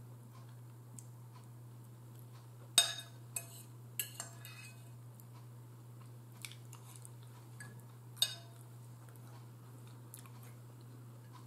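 Metal cutlery clinking and scraping against a bowl as food is picked up: a handful of sharp clinks spread out, the loudest about three seconds in, a closely spaced pair around four seconds and another near eight seconds.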